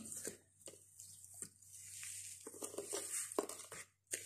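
Granulated sugar sliding from a bowl into a plastic bucket of lemon juice and peel: an on-and-off hiss of pouring grains with a few soft knocks of the bowl, fading out near the end.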